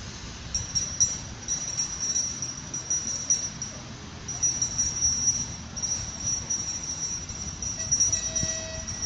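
Level-crossing warning bell ringing steadily with a high metallic ring, broken by a few short pauses, over a low rumble. A brief mid-pitched tone sounds near the end.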